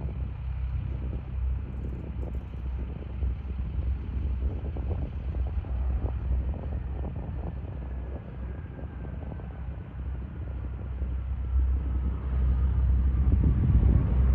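Embraer ERJ-135ER regional jet's twin Rolls-Royce AE 3007 turbofans rumbling as it rolls out on the runway after landing. The rumble grows louder near the end as the jet comes closer, with a faint whine slowly falling in pitch.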